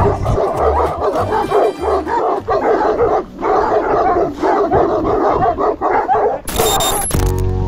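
Dogs barking and yelping over one another. Near the end a short burst of noise cuts in and music starts.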